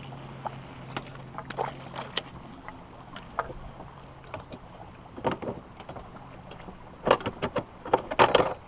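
Water slapping and splashing against the hull of a small fishing boat, with light knocks. The splashes come in short clusters about five seconds in and again near the end. A low steady hum runs under the first half.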